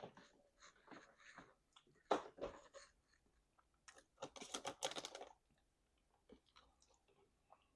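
Close-up chewing of crunchy fried chicken wings: scattered bites and chews, a sharp crunch about two seconds in, and a run of rapid crunching about four to five seconds in.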